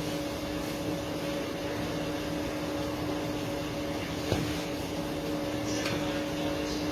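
Baguette moulding machine running with a steady motor hum. A single short knock comes about four seconds in.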